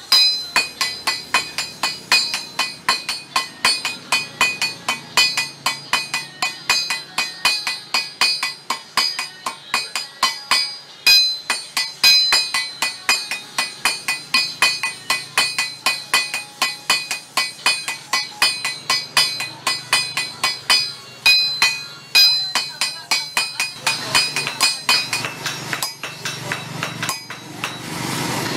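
Hand hammers striking a red-hot steel bolo blade on an anvil, about three blows a second, each with a bright metallic ring. Near the end the ringing drops away and the blows sound duller.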